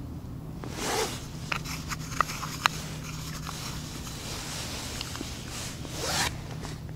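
Two short zip-like rasps about five seconds apart, with a few sharp little clicks between them, as the ice angler handles his rod and tackle over the hole.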